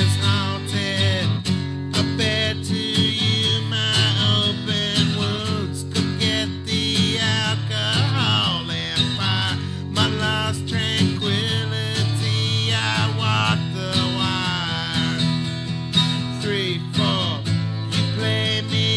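A man singing a song while accompanying himself on guitar.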